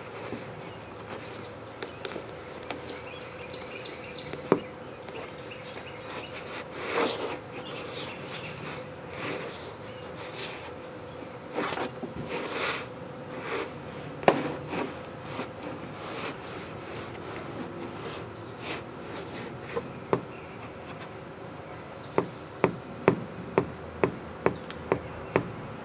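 Sneaker footsteps and taps on a wooden porch deck: scattered soft scuffs and single sharp taps, then near the end a run of about eight quick, evenly spaced taps. A steady faint buzzing hum runs underneath.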